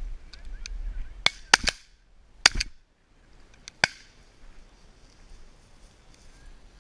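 A volley of shotgun shots at flushed pheasants: about six sharp reports, several in quick succession, over about two and a half seconds.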